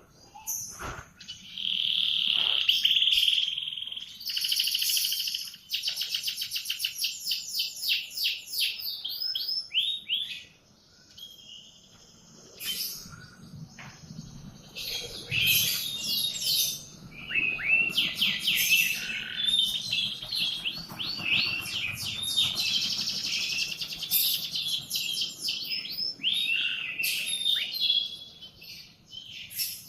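Domestic canary singing a long, varied song: a held whistled note, fast rattling trills, then runs of quick downward-sweeping notes, with a short pause about ten seconds in.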